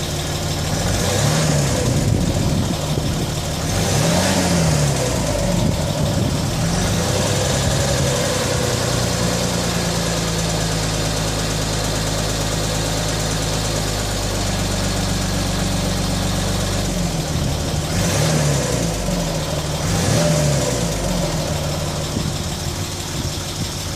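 Land Rover Discovery 3's 2.7-litre TDV6 twin-turbo diesel V6 being revved in short blips and held for several seconds at steady raised revs before falling back. A ticking comes with it that appears only at operating temperature and is loudest as the revs fall between 1500 and 1000 rpm.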